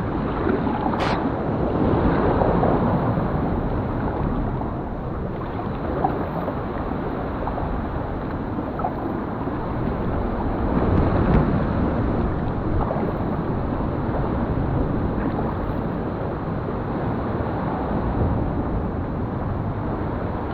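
Kayak paddle strokes and water sloshing against the hull, over a steady rushing of wind noise on the microphone. A single sharp knock about a second in.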